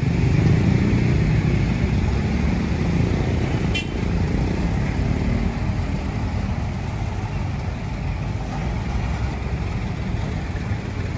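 Road traffic passing close by: a truck, motor scooters and cars driving over the crossing, giving a steady mix of engine and tyre noise.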